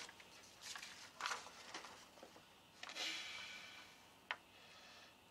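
Soft rustling of paper sheets being handled and unfolded: a few short rustles, then a longer one about three seconds in, and a single sharp click a little after four seconds.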